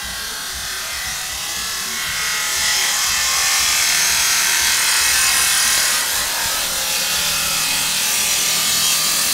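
Steady high hiss of metal-cutting work on a shipping container being repaired. It swells about two seconds in and eases slightly near the end.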